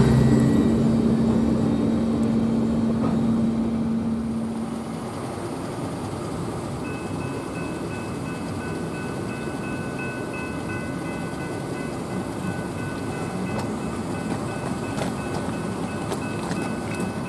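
A freight train's rumble fading away for the first few seconds. From about seven seconds in, a railroad grade-crossing warning bell rings steadily at several pitches.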